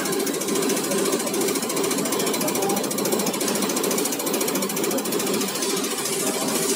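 Diesel injector test bench running a Caterpillar C7/C9 HEUI injector test: the injector fires in a rapid, steady ticking clatter over the even hum of the bench's drive and oil pump.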